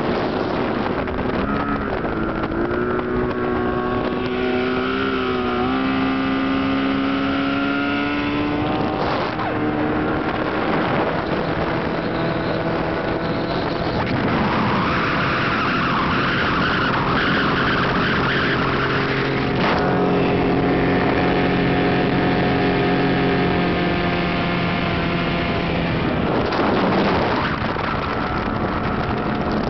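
A 150 hp Mercury outboard pushing an 18-foot aluminum bass boat under way. Its pitch climbs over the first several seconds as it revs up, then holds fairly steady at speed, with a stretch of rushing noise in the middle.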